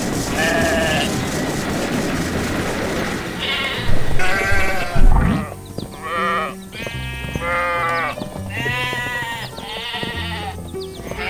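A series of wavering, bleat-like animal calls, one after another, over background music, with a loud sudden burst about four to five seconds in.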